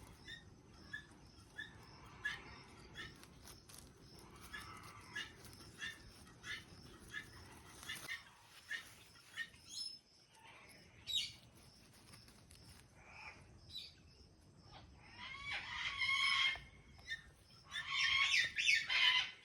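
Pet parrot calling in two louder bouts near the end, after a stretch of soft, evenly spaced ticks roughly every two-thirds of a second.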